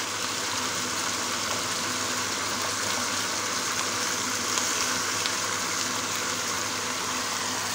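Chicken thigh pieces sizzling steadily as they brown in a little olive oil in a nonstick pan.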